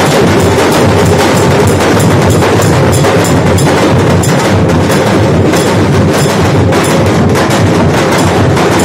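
Nashik dhol drums beaten hard with sticks in a fast, loud, driving rhythm of dense strokes that never lets up.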